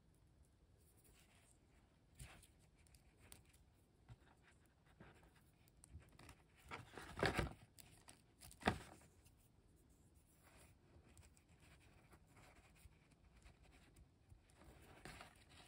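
Faint clicking and scraping of a small plastic BotBots transforming toy being handled, with two louder sharp clicks about seven and nine seconds in.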